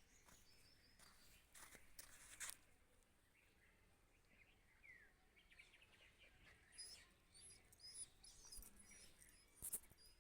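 Near silence with faint, high bird chirps repeating in the background, mostly in the second half, and a few soft clicks.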